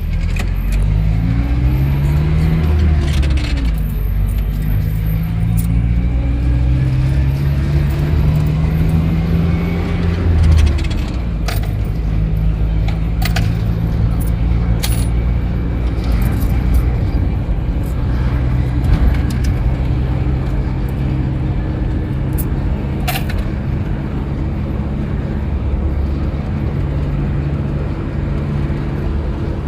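GAZelle route-minibus engine heard from inside the cabin, accelerating with its pitch rising and dropping at gear changes twice in the first half, then running steadily at cruise. Sharp clicks and rattles from the cabin come now and then, most of them around the middle.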